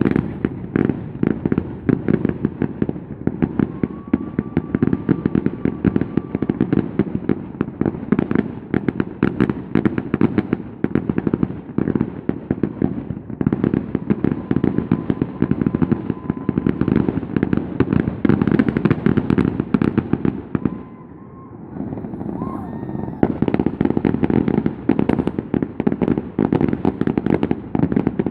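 Fireworks going off in a dense, rapid barrage of bangs and crackles, many each second, with a brief lull a little after twenty seconds in.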